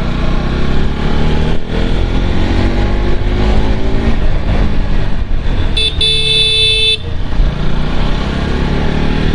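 Bajaj Pulsar NS200 motorcycle engine running under way, its pitch rising several times as it accelerates through the gears. A vehicle horn sounds for about a second around the middle.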